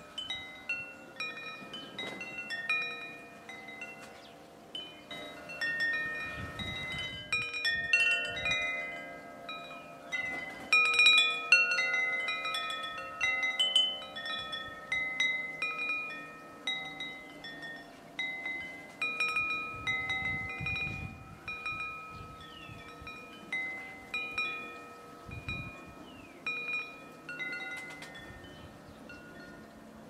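Wind chimes ringing irregularly in the breeze: many overlapping notes of different pitches, each ringing on after it is struck, busiest about a third of the way through.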